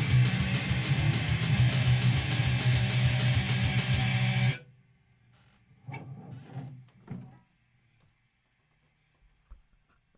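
Heavy metal played on distorted electric guitar with a fast, pounding rhythm, stopping abruptly about four and a half seconds in. A few faint short sounds follow.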